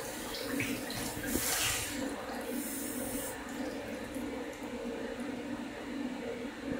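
Water running from a kitchen tap and splashing over a whole raw chicken as it is rinsed and turned by hand in the sink. The splashing is loudest from about one to three seconds in, then runs on more softly.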